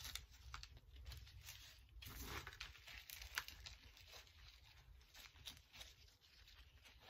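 Faint crunching and rustling of hands pressing coarse, airy potting mix around pothos roots in a small plastic pot, with scattered small clicks and crackles.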